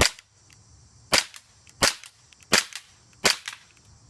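WE-Tech ISSC M22 gas blowback airsoft pistol firing five shots about 0.7 s apart, each a sharp pop followed by a fainter click.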